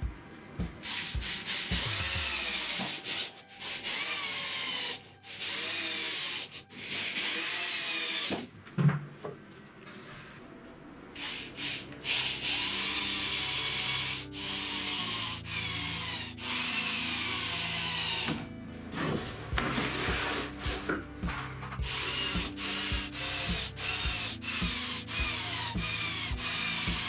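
Cordless drill working into wood in a string of short runs, each a second or two long, its motor whine rising and falling as it speeds up and slows, with a few clicks between runs. Background music plays underneath.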